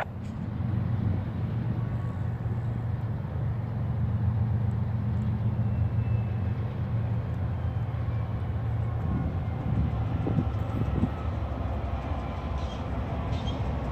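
Diesel engines of an approaching freight train led by a GE AC44CW and an ES44AC locomotive, a steady low rumble in the distance. Wind buffets the microphone.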